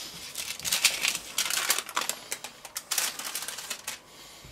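Baking paper crinkling and rustling in quick crisp strokes as it is handled and lifted with a freshly pressed burger patty on it, dying away near the end.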